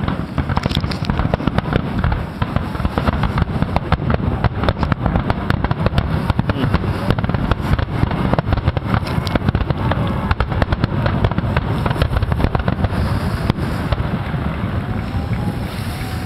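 Nagaoka-style aerial fireworks in a dense, continuous barrage: many shell bursts and crackles overlapping with no break, over a heavy rumble.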